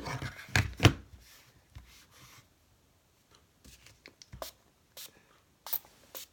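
Scrubbing and rubbing on the dirty plastic body of an Olympus Infinity Jr. film camera during cleaning: short scratchy wipes with scattered clicks and knocks from handling, heaviest in the first second and again between about four and six seconds in.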